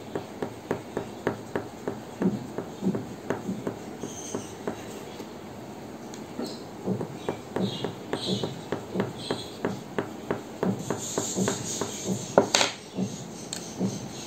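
Green colouring pencil scratching across paper in short, quick shading strokes, about three a second, as it fills in the leaves of a drawing. One louder, sharper click comes near the end.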